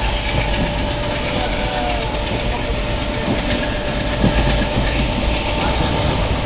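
Moving Indian Railways passenger coach heard from inside at an open window: a steady rumble of wheels on rails, with scattered faint clicks from the track.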